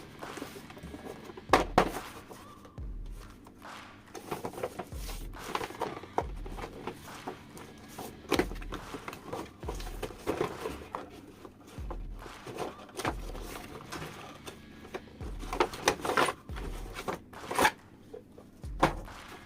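Hands handling plastic toys and their packaging: irregular clicks, taps and rustling, with a few sharper knocks about two seconds in and near the end.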